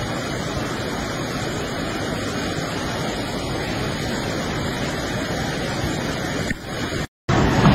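Flash-flood river water rushing in a steady roar. Near the end the sound cuts out for a moment and comes back louder.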